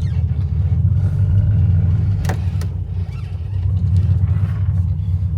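LS V8 engine in a 1988 Ford Bronco, running through its true dual stainless exhaust as the truck drives off slowly, heard from inside the cab: a steady low rumble. A single sharp click comes about two seconds in.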